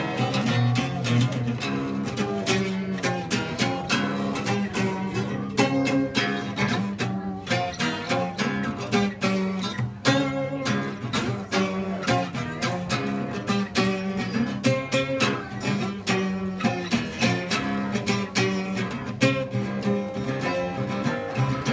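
Music: guitar played with a plucked, rhythmic pattern over a bass line, with bowed strings underneath.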